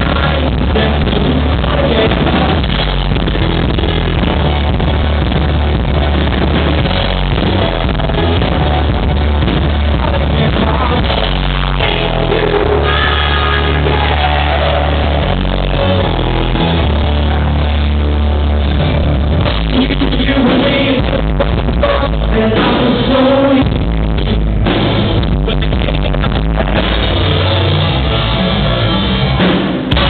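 Live rock band playing loud: a singer over electric guitar and a drum kit, heard from the crowd.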